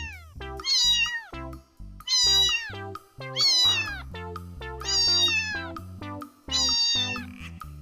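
A cat meowing five times, about one meow every second and a bit, each one high-pitched and falling in pitch, over background music.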